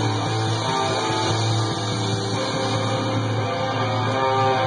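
Punk rock song with guitar, playing from a red vinyl 7-inch single spinning on a turntable.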